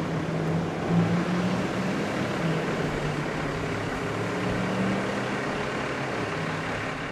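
Street traffic at an intersection: a steady wash of road noise with the low, wavering hum of car engines.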